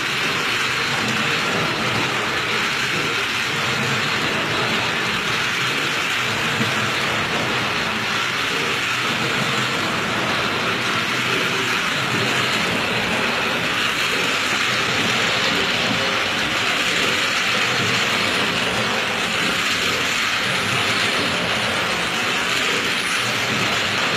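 Toy bullet train running around a plastic oval track: a steady, unbroken mechanical running noise from its motor and wheels.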